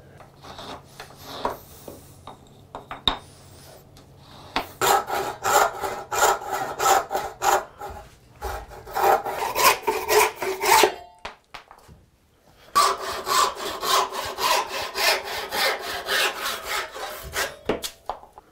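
A hand saw cutting through a small purpleheart scrap clamped in a vise, in rapid back-and-forth strokes. There are a few handling knocks first, then two runs of sawing with a brief pause between them.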